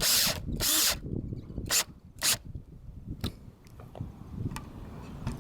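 A screw being driven into a wooden board: short bursts of scraping noise, two longer ones at the start and two brief ones about two seconds in, followed by a few faint ticks.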